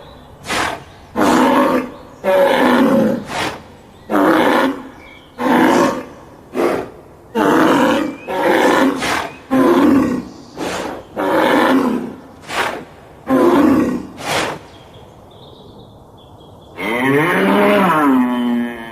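A raging bull bellowing in a string of about a dozen short, deep, rough calls, roughly one a second. After a short lull, a long lowing moo begins near the end, its pitch dipping and rising.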